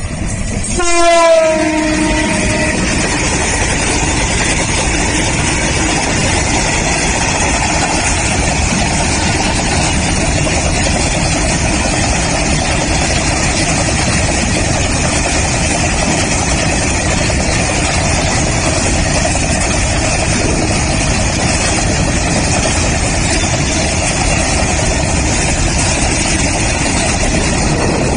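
A passing train sounds its horn briefly about a second in, the note dropping in pitch. Then comes the loud, steady noise of the train running past on the rails.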